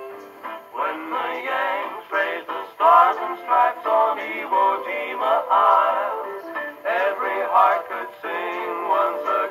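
A 1945 78 rpm shellac record playing on a wind-up Victor Victrola acoustic phonograph. After a fiddle note fades, a male western vocal group sings with its string band, starting about a second in. There is little bass or treble in the sound.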